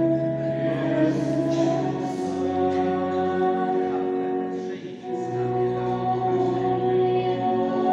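Church music: a hymn sung by a choir over held chords, the low note changing every couple of seconds.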